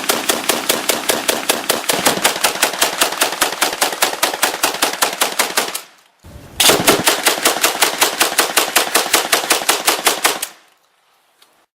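AA-12 automatic 12-gauge shotgun firing full-auto, a rapid even string of about five to six shots a second. One long burst breaks off about halfway, then a second burst of about four seconds stops shortly before the end.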